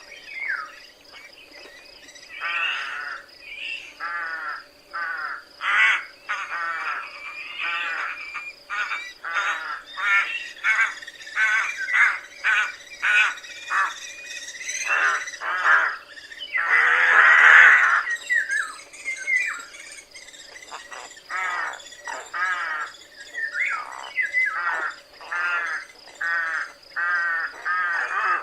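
Rooks cawing: a long run of short, harsh calls in quick succession, with one louder, longer call about seventeen seconds in.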